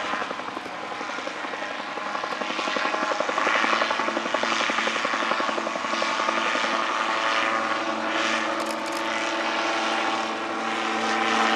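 RotorSport UK Calidus autogyro in flight, its engine and pusher propeller droning steadily. The sound swells and fades several times as the gyroplane manoeuvres, with the engine note growing stronger a few seconds in.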